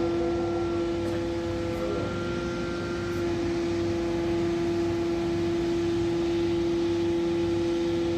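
Hydraulic static pile driver's power unit running steadily, with a strong, steady whine over the engine noise.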